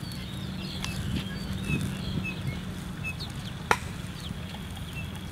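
Outdoor ambience of small birds calling in short high chirps over a faint steady insect drone and a low background rumble, with one sharp click about three and a half seconds in.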